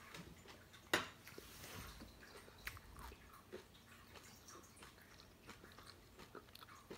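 Someone chewing a crunchy high-fibre wheat cracker topped with bacon jam: one sharp crunch about a second in, then quieter scattered crunches and mouth sounds.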